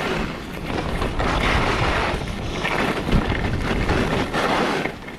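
Wind rushing over a GoPro's microphone while skiing downhill, with the skis hissing and scraping over packed snow in turns that swell and fade every second or two. The sound drops briefly near the end.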